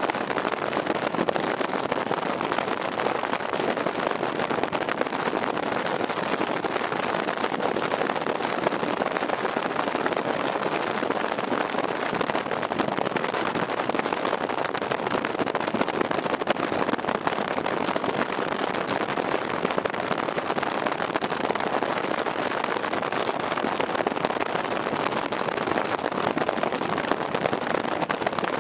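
Steady rushing noise heard from inside a moving car, with a dense fine crackle all through and no let-up.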